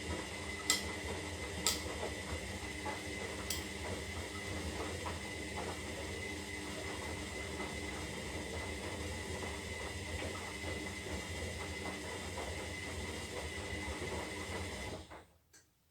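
Zanussi Lindo 300 washing machine running a synthetic wash cycle: a steady motor hum and whine with a thin high tone, and a few sharp clicks or knocks in the first few seconds. It cuts off suddenly about fifteen seconds in.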